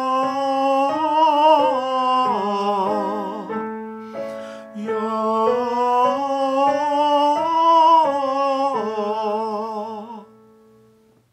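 A man singing a vocal warm-up exercise on an open vowel with vibrato, accompanied by piano chords. There are two sung phrases with a short breath between them about four seconds in, and the last chord fades out near the end.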